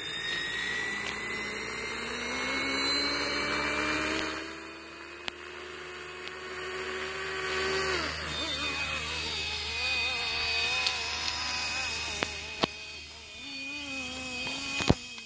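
Fly Wing FW450 electric RC helicopter in flight: the whine of its motor and rotors rises slowly in pitch, drops sharply about eight seconds in, then wavers up and down. A few short sharp clicks are mixed in, the loudest near the end.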